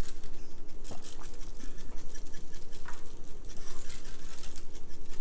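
Salt shaker shaken hard and steadily over raw potato wedges, a quick, even rattle of salt grains.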